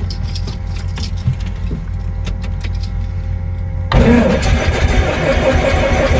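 A Cessna 152's four-cylinder Lycoming engine just after start, running steadily. About four seconds in it suddenly gets louder and fuller.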